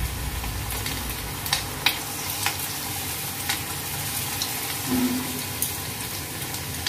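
Batter-coated chicken pieces deep-frying in hot oil in a wok: a steady sizzle with scattered crackling pops.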